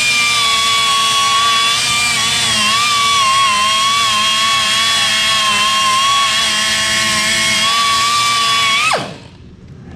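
Electric buffer spinning a polishing pad against an aluminum wheel. It gives a steady high whine whose pitch wavers slightly as the pad is pressed and glided over the metal. About nine seconds in it is switched off, and the whine falls quickly in pitch as it spins down.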